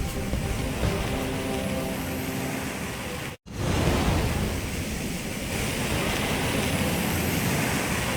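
Sound-effect audio: a steady, dense rumbling drone with faint held tones, broken off by a short dropout about three and a half seconds in before a similar drone starts again.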